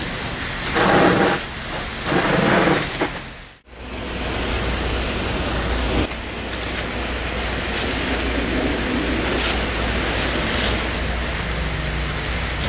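Fire hose nozzle spraying a water jet, a steady hiss with a low rumble underneath. The sound surges a few times, drops out for a moment about three and a half seconds in, then runs on steadily.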